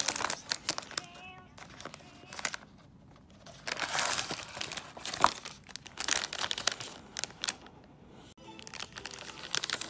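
Foil snack wrapper and cardboard box being handled, crinkling and rustling in irregular bursts with short pauses.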